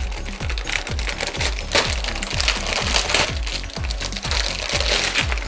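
Clear plastic wrap crinkling as it is handled and pulled off a plastic toy board, over background music with a steady beat of about four strokes a second.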